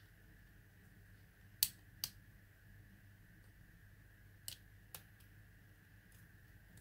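Plastic body shell of a small toy quadcopter being squeezed together by hand: two pairs of sharp clicks, each pair half a second apart, the first click the loudest, over a faint steady hum.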